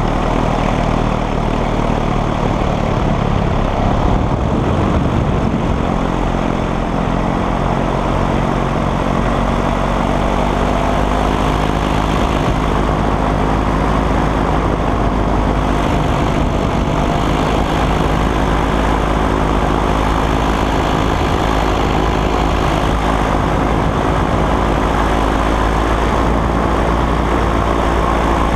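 Paramotor engine and propeller running steadily in flight, a loud, continuous engine drone.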